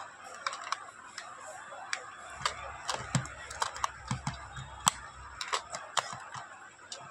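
Irregular light plastic clicks and taps as fingers and a small screwdriver work the battery cover on the underside of a toy robot dog. A faint low hum runs underneath for a few seconds in the middle.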